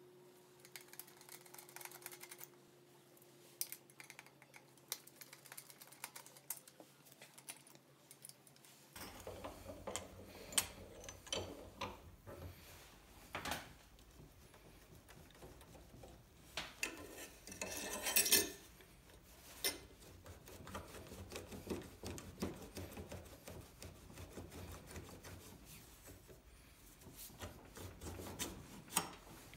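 Small metal clinks and clicks of hand tools on steel parts as a hose reel's crank-handle assembly is taken apart: first a wrench on a nut at the cart, then the handle worked in a bench vise, with a louder brief metal rattle about 18 seconds in.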